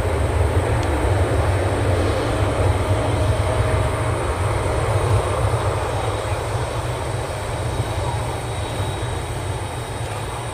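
Airbus A320-200's twin jet engines running at low thrust as it lines up on the runway: a steady rumble with a faint high whine, slowly fading.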